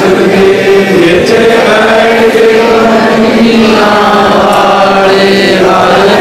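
A man chanting a Sikh devotional hymn line in long, drawn-out sung notes, without a break.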